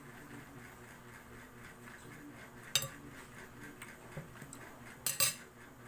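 Eating a ripe mango with a metal spoon: faint eating noises, one sharp click about three seconds in and a quick cluster of two or three clicks near the end.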